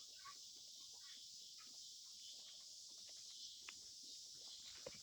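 Near silence: faint scattered taps and clicks over a steady high hiss.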